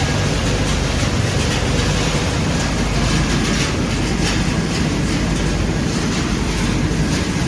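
PCB crushing and separating machinery running: a steady, loud mechanical noise with a fine continuous rattle.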